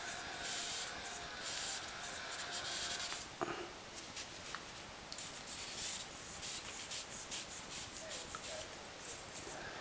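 Paper napkin rubbing against the plastic LED bulb at the seam between diffuser and housing, wiping off silicone sealant in repeated scratchy strokes that come quicker near the end. One sharp click about three and a half seconds in.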